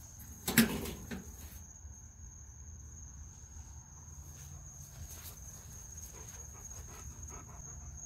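Night insects trilling in one steady high note, with a sharp bump about half a second in and faint rustling.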